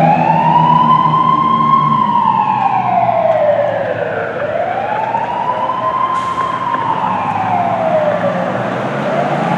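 Siren of a 1994 Duplex D500SFD / Anderson fire engine wailing in slow cycles, each rising quickly to a high pitch and sliding slowly back down, about twice. Under it is the steady low drone of the truck's engine, with a brief hiss about six seconds in.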